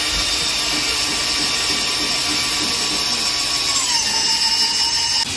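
Electric power tool running with a steady high whine; its pitch drops slightly about four seconds in, and it cuts off just before the end.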